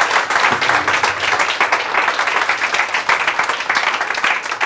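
Audience applauding steadily with dense clapping at the end of a talk.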